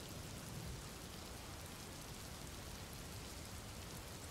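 Faint, steady rain: an even hiss with a light patter of drops.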